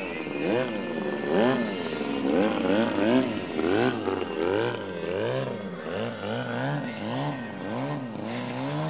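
Large radio-controlled aerobatic plane's engine revving up and down over and over, about twice a second, as the throttle is worked through the manoeuvres.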